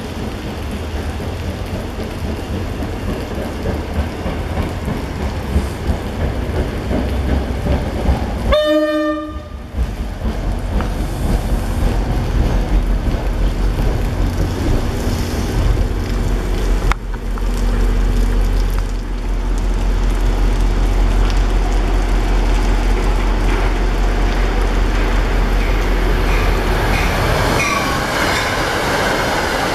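NJ Transit commuter train running through the station: a steady low rumble and rattle of the passing cars, with one short horn blast about nine seconds in.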